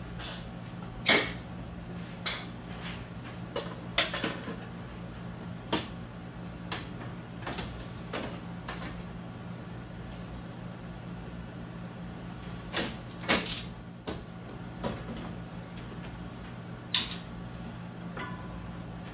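Irregular clanks, clicks and knocks of metal parts and hand tools being handled while the upper radiator mount is refitted over a Jeep Cherokee XJ's new radiator, over a steady low hum.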